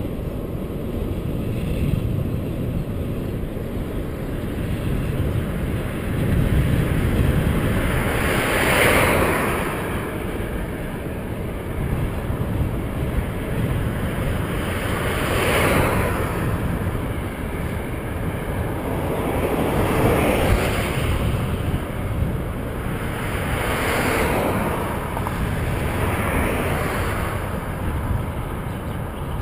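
Wind rumbling over the microphone of a camera on a moving bicycle, with cars passing on the highway about five times, their tyre noise swelling and fading each time.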